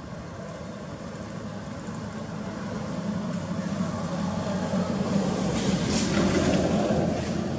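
A motor vehicle's engine passing nearby: a steady low hum that grows louder over several seconds, peaks near the end, then begins to fade.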